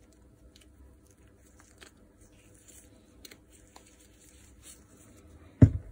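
Rustling of nitrile-gloved hands and small scattered clicks of metal parts as an angle grinder's gear housing and bearing are handled and fitted, then one loud dull thump near the end.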